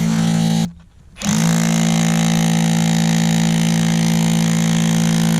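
Battery-powered jackhammer breaking hard cap rock, running with a steady, even buzz, stopping for about half a second near the start, then running on.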